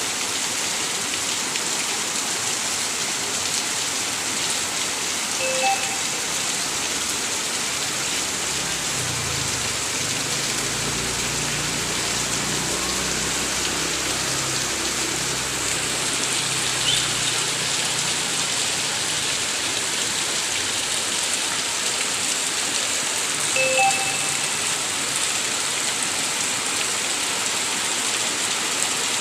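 Steady rain falling, a constant even hiss. A faint low rumble runs beneath it through the middle.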